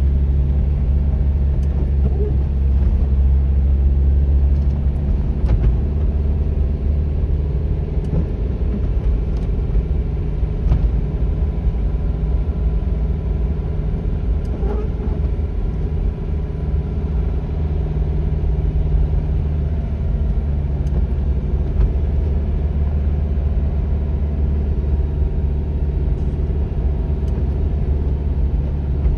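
Car running steadily on the road: a constant low engine and road rumble with a faint hum above it and a few small knocks.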